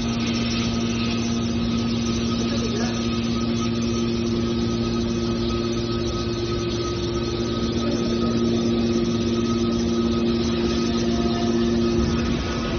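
Scrap car baler's power unit running steadily, a constant mechanical hum with no change in load.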